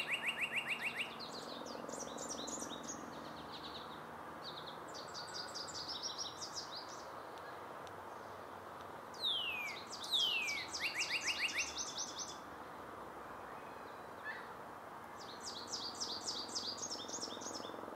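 Male northern cardinal singing: loud downslurred whistles that run into a fast series of short repeated notes, as a phrase ends at the start and again about nine seconds in. Between these phrases come higher, rapid trilled phrases, over a steady background hiss.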